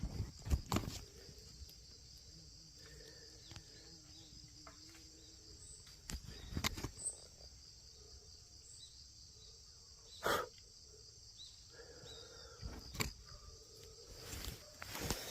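Night insects chirring in a steady, even high-pitched drone, with several sharp knocks or thumps scattered through.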